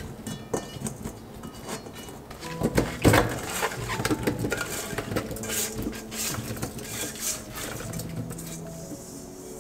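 Salted radish cubes being handled and dropped into a stainless steel mesh strainer: irregular knocks and clatters of the wet cubes against the metal, with brine dripping. The loudest knock comes about three seconds in.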